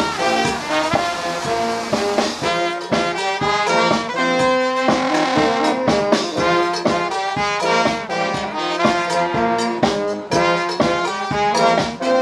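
A street brass band playing an upbeat tune: saxophones, trumpet and sousaphone over a steady bass-drum beat.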